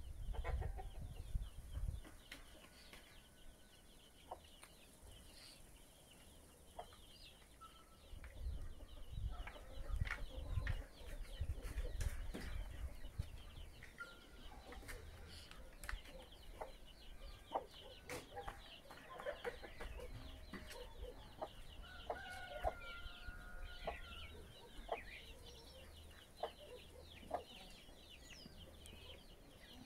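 Chickens clucking and other birds calling, with scattered clicks and a low rumble that comes and goes.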